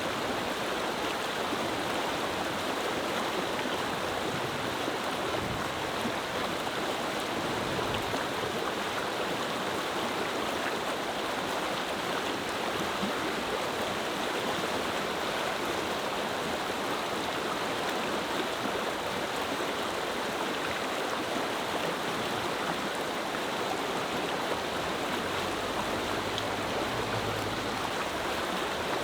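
Clear mountain river flowing, a steady rushing murmur of water.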